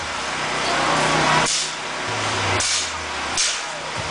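Small antweight combat robots' electric motors running during a fight: a low steady hum, broken by a few short bursts of noise.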